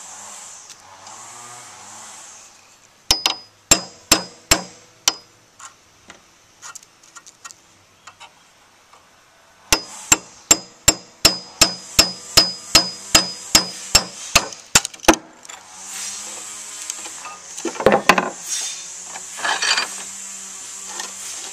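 Claw hammer striking a steel pin punch to drive the rat-tail tang of an old drawknife out of its wooden handle: a run of about six sharp metallic taps, then after a pause a steady run of about fifteen, each with a short ring. Near the end, rougher scraping and knocking as the handle is worked loose.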